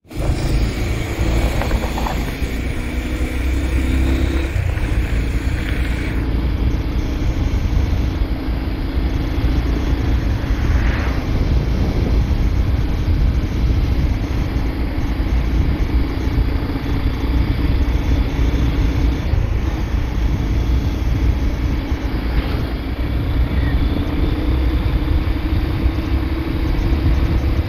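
Steady wind noise buffeting the microphone over the hum of a road vehicle's engine, running at cruising speed.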